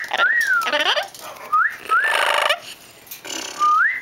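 Pet parrot whistling a two-part whistle, a short rising note and then a longer rising-and-falling one, three times over, with a harsher, gritty sound under the middle whistle.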